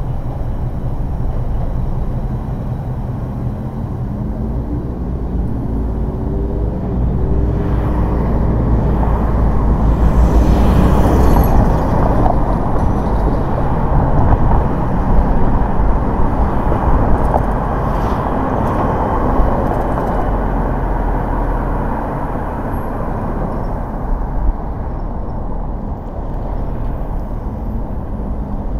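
Car driving through city traffic: steady tyre and engine road noise, with an engine tone climbing in short steps around five seconds in and a louder rush of traffic noise between about eight and twelve seconds.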